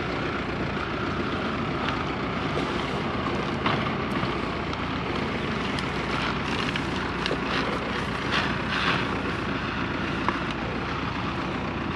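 Diesel engine of a machine pulling field drainage tile off its reel cart, running steadily, with a few short knocks and rattles about four seconds in and again around eight to nine seconds.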